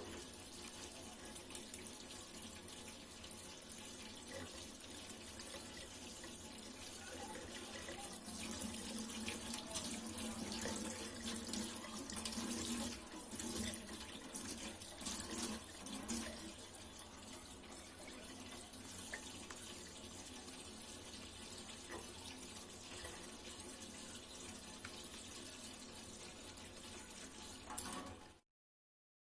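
Water running steadily from a tap into a sink, louder and more uneven for several seconds in the middle, cutting off abruptly near the end.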